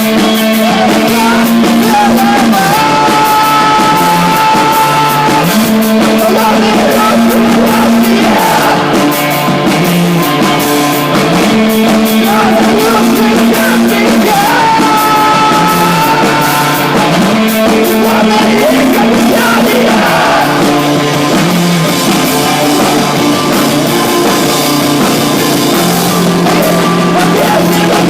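Rock band playing live: a bass line that steps between long held notes, guitars, and a voice singing a sustained melody.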